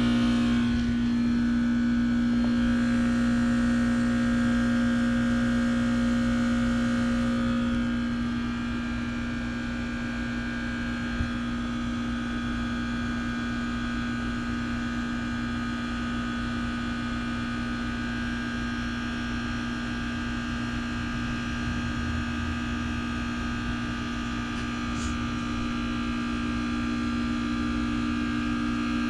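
Outdoor unit of a 2006 Trane XB13 heat pump running, its reciprocating compressor giving a steady hum. The sound drops a little about eight seconds in.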